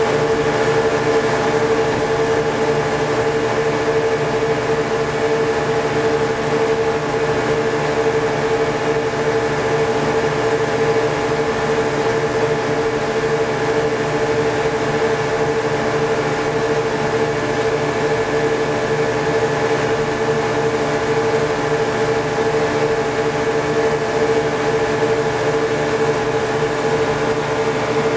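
A boat's engine running steadily at cruising speed, one unchanging pitched drone with a rushing hiss beneath it.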